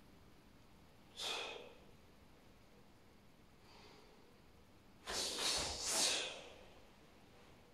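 A karateka's forceful breaths: a short exhale about a second in, then a louder, longer double exhale with the rustle of his cotton karate gi as he opens his arms into the start of the kata Seisan, around five to six seconds in.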